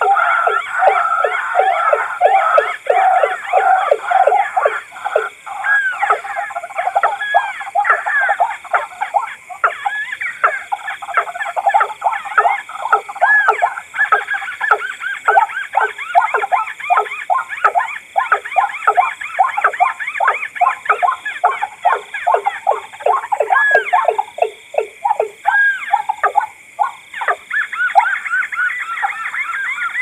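Recorded calls of rails: white-breasted waterhen, watercock and crake calling together, a dense run of loud, rapidly repeated croaking notes, several a second, with calls overlapping. This is a bird-call lure recording of these waterbirds.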